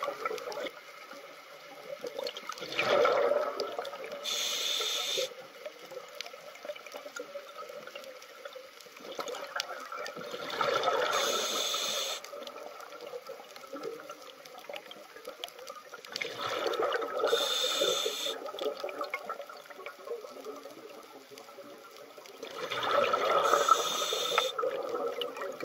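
Scuba diver breathing through a regulator underwater: about four breaths, each a rushing gurgle of exhaled bubbles together with a short hiss from the regulator, one every six to seven seconds.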